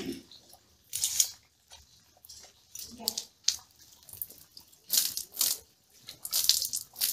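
Water poured from a steel jug over a metal grill grate, splashing in several short gushes to rinse it.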